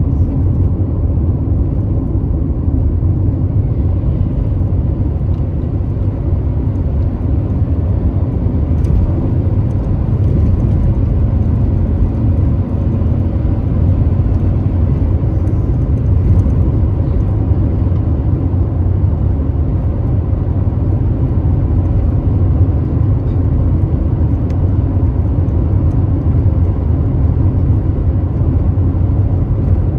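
Car driving at a steady speed: an even low rumble of road, tyre and engine noise, heard from inside the car.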